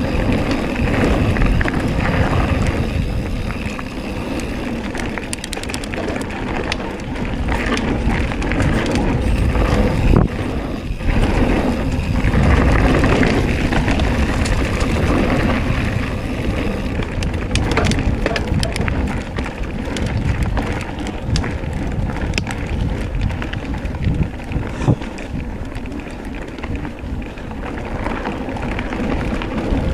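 Scott mountain bike riding a dirt singletrack: tyres rolling over dirt and loose stones, with frequent clicks and rattles from the bike over bumps and wind on the microphone.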